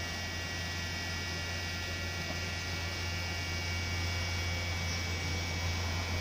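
Steady low electrical hum, with a faint high whine above it, growing slightly louder toward the end.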